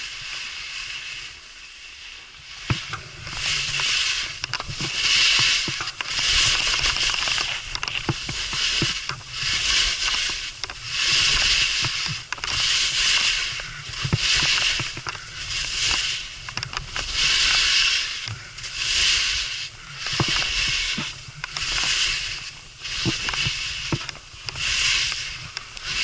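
Skis scraping and hissing over snow in a steady rhythm of turns, one surge of hiss with each turn about every second and a bit, with scattered sharp knocks in between. It starts quieter and settles into the rhythm a few seconds in.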